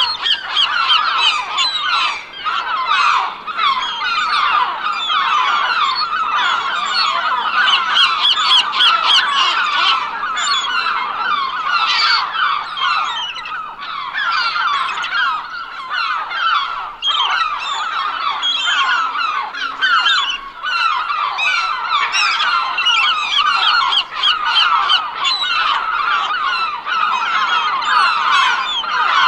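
A large flock of seagulls calling all at once, a dense, unbroken chorus of overlapping squawks and cries.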